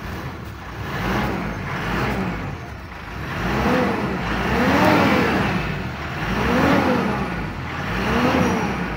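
A 2012 Mitsubishi Pajero's engine is revved with the throttle several times, its pitch rising and falling with each blip. It is slow to pick up revs on the throttle.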